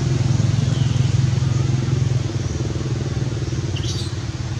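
A motor engine running steadily at idle, with a fast, even throb. A brief high-pitched chirp comes near the end.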